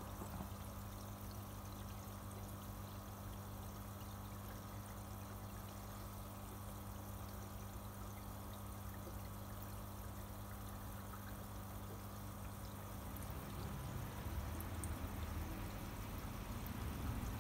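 Steady trickling and splashing of circulating water in an indoor fish-pond tank, over a low, steady hum.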